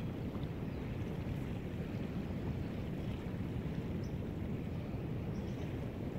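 Steady low rumbling noise of wind on the microphone, with water lapping along the shore.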